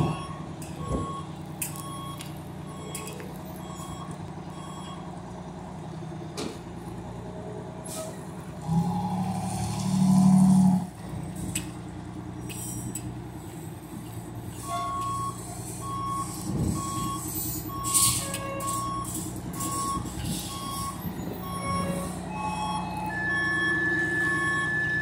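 Fire engine backing up: its reversing alarm sounds a steady train of short beeps over the running engine. The engine drone swells louder for about two seconds around nine seconds in, and a burst of air hiss, like an air brake, comes a little past halfway.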